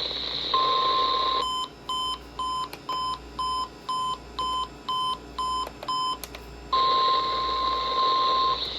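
Electronic emergency alert attention tones heralding a severe thunderstorm warning. A steady tone near 1 kHz sounds first, then for about five seconds a lower and a higher tone alternate about twice a second, and the steady tone returns near the end, over a constant hiss.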